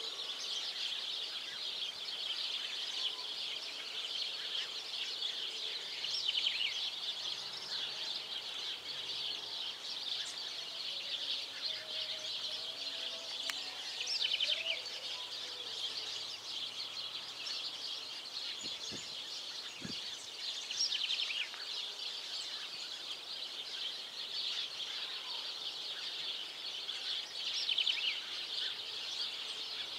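Outdoor wildlife ambience: a continuous high-pitched chirring chorus that swells every several seconds, with a few faint bird calls.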